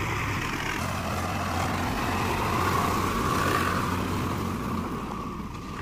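Swaraj 742 FE tractor's three-cylinder diesel engine running under load as it pulls a loaded trolley past close by. It grows a little louder just past the middle and eases off near the end.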